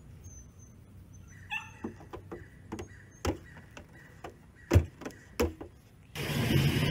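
A goat's hooves tapping and knocking on a car's metal hood as it steps and shifts about, a scattering of single sharp knocks, the loudest about five seconds in.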